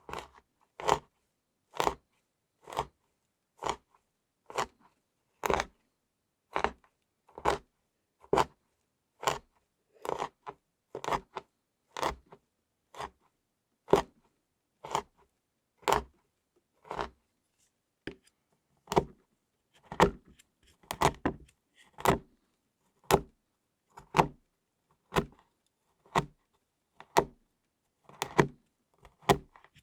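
Kitchen knife chopping flaked chocolate shavings, steady chops about one a second, with a few quick double chops past the middle and near the end.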